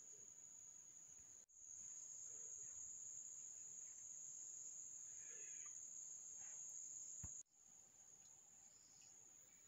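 Steady, high-pitched insect drone, faint, cutting out for an instant twice.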